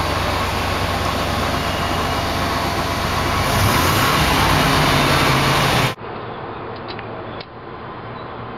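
Chevrolet G20 van's 350 V8 running while driving, heard from inside the cab, the engine note growing louder and deeper about three and a half seconds in as it pulls harder. Near six seconds it cuts to the same engine idling more quietly under the open hood, with a few light ticks.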